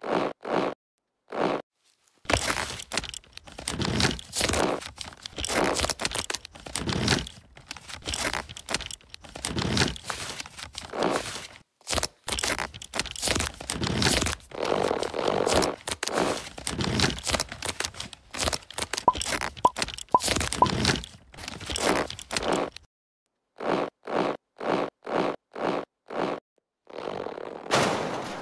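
Dry leaf crunching and crackling in dense, irregular bursts as it is crushed and torn. After a short gap about 23 seconds in, it returns as separate short crunches roughly twice a second.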